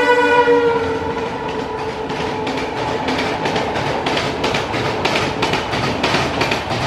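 Horn of a passing ALCo WDM-3D diesel locomotive dropping in pitch and cutting off within the first second. The express coaches' wheels then clatter rhythmically over the rail joints, about three or four clicks a second, over a steady rushing noise.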